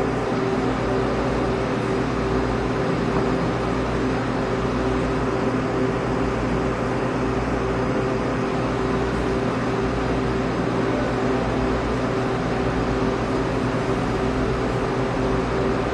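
Steady droning music accompanying the dance: several low tones held unchanging over a noisy hiss, with no beat or pauses.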